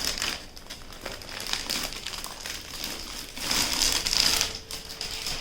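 Packaging crinkling and rustling by hand as a parcel of sarees is unwrapped, in irregular bursts, loudest about three and a half to four and a half seconds in.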